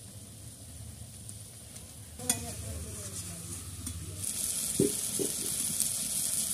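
Lote (Bombay duck) fish curry sizzling in a metal kadai as it is stirred with a spatula. The fish is being dry-fried in its own juices without water. A sharp clink of the spatula on the pan comes about two seconds in, two short knocks come near five seconds, and the sizzle grows louder from about four seconds in.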